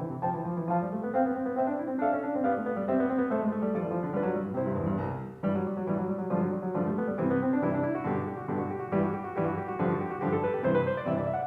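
Background piano music, a gentle run of notes with a brief dip in level about five seconds in.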